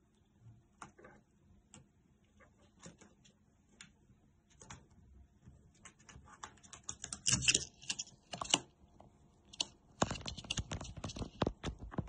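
A pencil scratching and tapping on a notebook page while a small parrot pecks at the pencil and steps about on the paper: faint scattered light clicks and taps, busier in the second half.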